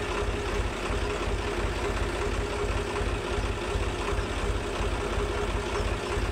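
Swaraj tractor's diesel engine idling steadily with an even low chug.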